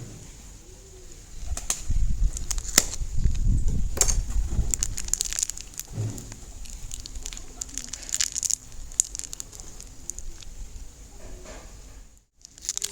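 Hands handling crafting materials: crinkling, taps and a few short squeaks, with a low rumble of handling between about two and five seconds in.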